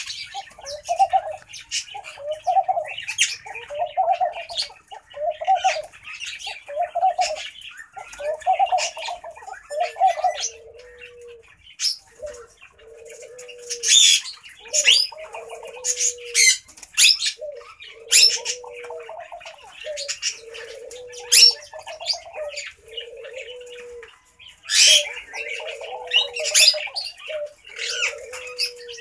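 Laughing dove cooing: a long series of soft low notes repeated at an even pace, faster for the first ten seconds, then lower and more spaced. Over them come sharp high chirps from other birds.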